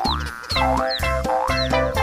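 Background music in a children's style: low bass notes under a melody, with short sliding notes that rise in pitch about twice a second.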